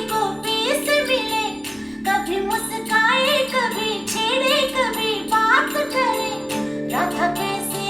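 A song played back through a valve (tube) amplifier and loudspeakers: a wavering sung melody over a steady drone, with jingling percussion.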